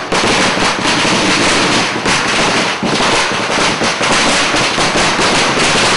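A string of firecrackers going off in a dense, continuous crackle of rapid bangs, starting and stopping abruptly.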